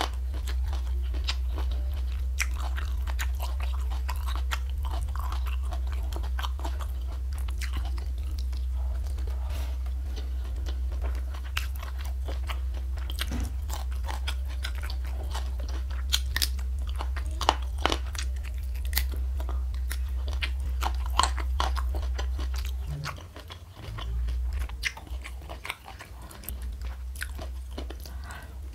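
Close-miked eating: chewing with many sharp crunches of crisp fried food, spread irregularly throughout. A steady low rumble runs beneath it and drops away about 23 seconds in.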